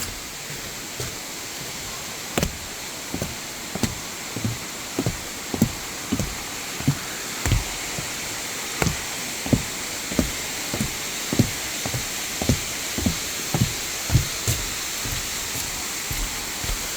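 Steady hiss of rain and falling water. From a couple of seconds in, regular low thuds come about every two-thirds of a second, like the footsteps of someone walking.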